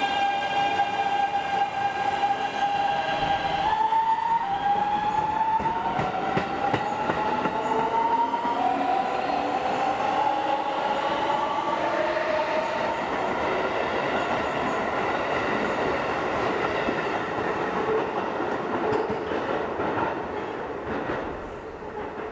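Keikyu train's Siemens GTO-VVVF 'do-re-mi-fa' inverter singing as the train pulls away. A steady tone gives way, about four seconds in, to a stepwise rising musical scale as the train accelerates. The notes then merge into the running noise and clickety-clack of the passing train, which fades near the end.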